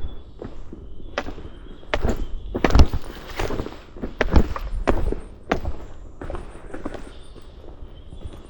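Footsteps of a walker on a path, an uneven series of steps about two a second, some heavier than others, with a faint bird call near the start.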